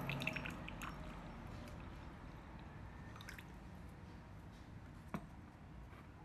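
Faint wet squishing with a few small clicks, as of utensils handling soft food in sauce in a miniature kitchen; the sound fades away, with one sharper click about five seconds in.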